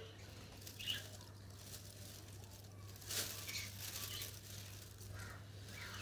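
Quiet handling sounds with a few faint, brief chirps from conures (pineapple and yellow-sided conures), over a steady low hum.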